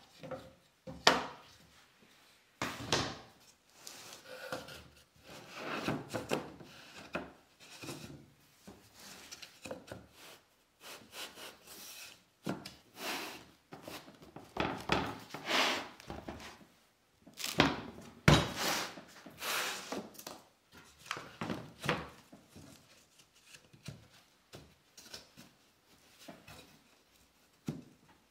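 Wooden boards and panels being handled on a workbench: irregular knocks, thuds and scraping as they are set down and slid into place, with a sharp knock about a second in and another near the middle.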